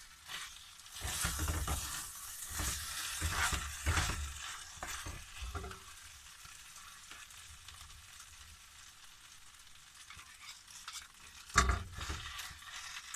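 Wooden spatula stirring and scraping fried rice with mushrooms in a frying pan over a gas flame, the rice sizzling. The stirring stops after about six seconds, leaving a soft sizzle, and a sharp knock comes near the end.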